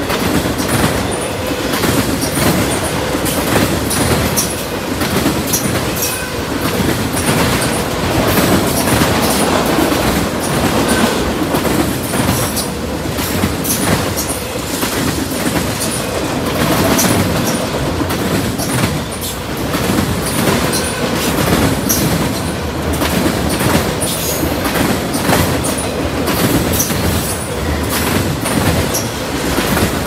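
Autorack freight cars rolling past close by: a steady loud rumble and rattle of steel wheels on rail with frequent clicks, and now and then a faint wheel squeal.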